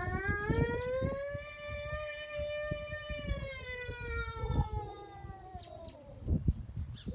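Tornado siren sounding one long wail that rises, holds and then slowly falls, with the next wail starting to rise right at the end. Low rumble and knocks run underneath.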